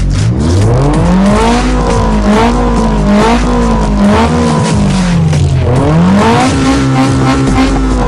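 Car engine revving, its pitch climbing, wavering, dropping about two thirds of the way through and climbing again before easing off, over a steady low drone.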